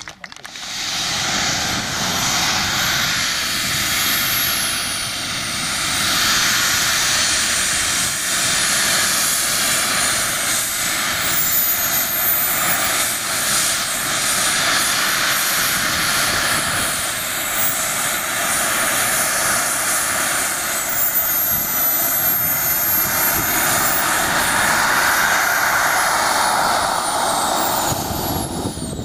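Small jet turbine of a radio-controlled scale Fouga Sylphe model running as the model taxis: a steady rushing jet noise with a high whine that wavers up and down in pitch.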